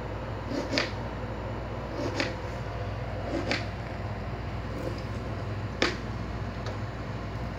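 Gas burner running steadily under a frying pan of heating oil, a constant hiss with a low hum, broken by four short sharp crackles spaced one to two seconds apart.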